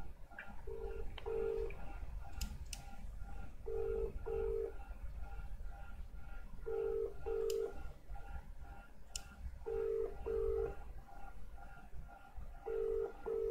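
Australian telephone ringback tone: a low double ring repeating about every three seconds, five times, the sign of an outgoing call ringing and not yet answered.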